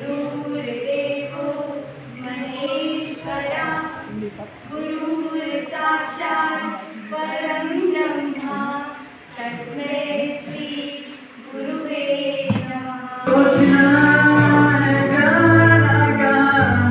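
Young women singing together into a microphone, amplified over the hall's speakers. About thirteen seconds in it cuts to a young man singing into a microphone over louder backing music with a steady low note.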